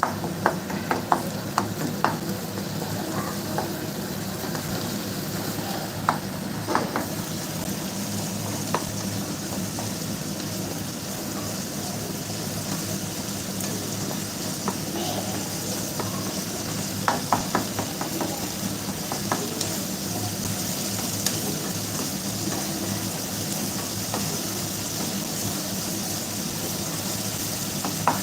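Chicken gravy being stirred in a pan: a spoon clicks and scrapes against the pan in short clusters every few seconds over a steady sizzle.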